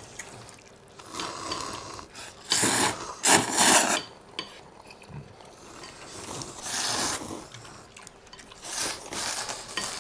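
People slurping ramen noodles: several long, airy slurps with short pauses between them.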